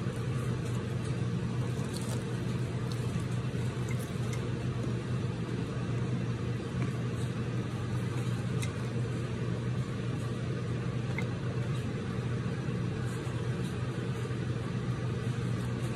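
Stove's exhaust blower fan running with a steady low hum. It has switched on by itself because the stove got too hot, and it will not turn off.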